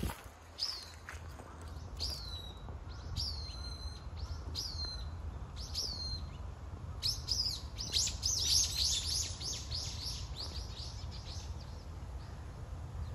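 A small songbird calling: high notes each sliding down in pitch, about one every half second to second, then about 7 seconds in a fast run of similar falling notes for some three seconds, over a low steady rumble.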